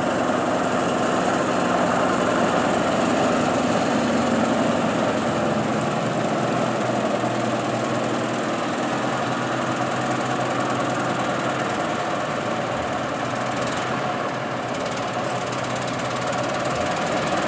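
Antique Mack truck's engine running steadily as the truck drives slowly past.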